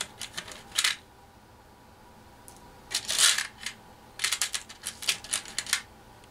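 Small metal flat washers clinking and rattling against each other as they are handled. The clicks come in three quick clusters: one at the start, one about three seconds in, and a longer run of light clicks from about four to nearly six seconds.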